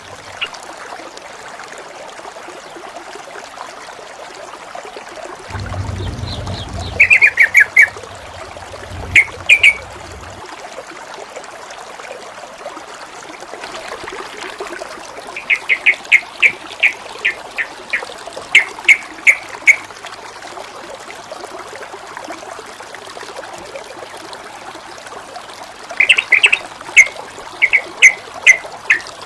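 Water trickling and splashing steadily, while a bird calls in quick runs of short, loud chirps several times. A low rumble joins the water for a few seconds in the first third.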